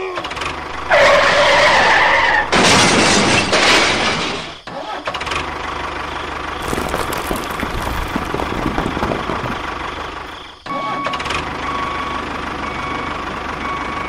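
Engine sound effect for a toy tractor pushing rocks. It comes in with a couple of loud noisy bursts over the first few seconds, then runs steadily, breaking off briefly about ten seconds in before carrying on.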